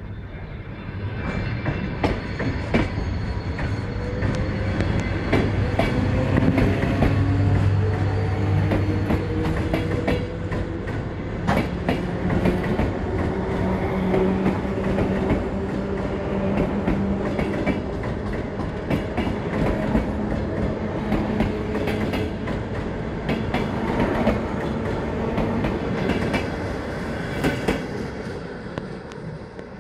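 ER9T electric multiple unit pulling away along the platform: its traction motors whine and rise slowly in pitch as it speeds up, and the wheels click over the rail joints. The sound builds over the first few seconds and fades a little as the last car passes near the end.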